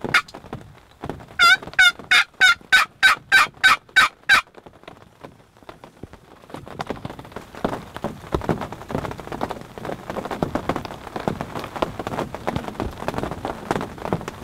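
A run of about eleven turkey yelps, three to four a second, each note breaking downward in pitch, after a single click. From about halfway through, steady rain falls.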